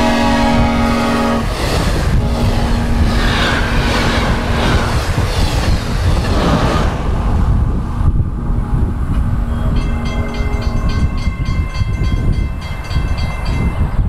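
Synthesized passing train: a custom Nathan K-5LLBA five-chime airchime horn chord, already lowered in pitch by the Doppler shift as the train goes by, cuts off about a second and a half in. The train's wheels then rumble and clatter past in a rush of noise that slowly fades. Near the end a fast, even, high ringing tick starts up.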